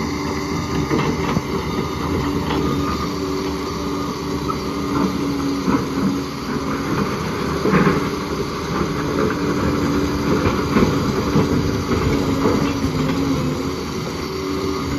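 Liebherr 746 crawler bulldozer's diesel engine running steadily under load, with frequent irregular clanks and knocks from the working machine.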